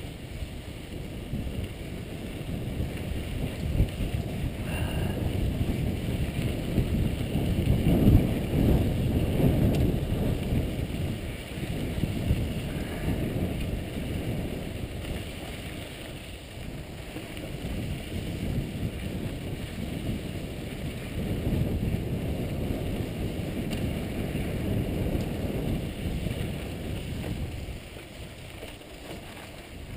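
Mountain bike riding fast down rocky dirt singletrack: wind rushing over the microphone of a rider-mounted camera, with the rumble and rattle of tyres and bike over dirt and rock. It is loudest about a third of the way in and eases off near the end.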